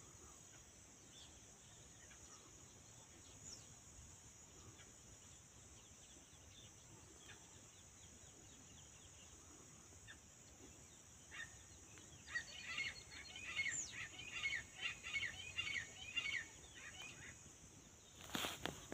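Faint steady high insect drone with scattered bird calls. About two-thirds of the way in, a bird gives a rapid run of repeated chirping calls, about three a second, for roughly five seconds. A short knock comes near the end.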